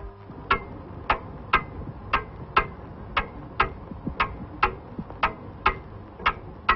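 Mechanical clock ticking, about two ticks a second in an uneven tick-tock rhythm.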